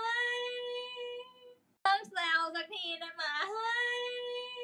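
A woman's voice sings a short high phrase that settles on a long held note. The same phrase starts again about two seconds in and ends on the same held note.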